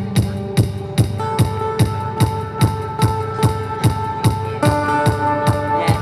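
Amplified acoustic guitar chords over a steady kick-drum beat of about two and a half thuds a second, with no singing; the chord changes about a second in and again near the end.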